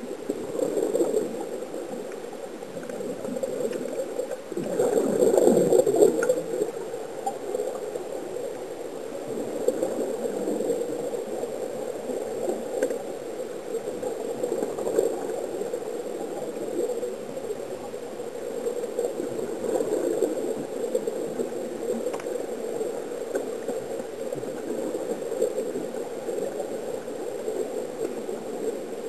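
Muffled underwater bubbling and gurgling, air escaping in bubbles from sea-walker diving helmets, with a louder surge about five seconds in.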